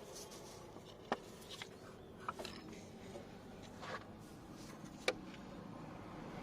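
A few light, sharp clicks and taps, about three of them spread out, over low background noise, typical of hand work on a small part.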